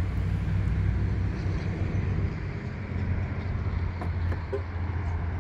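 A vehicle engine running steadily with a low, even hum, and a few faint clicks about four seconds in.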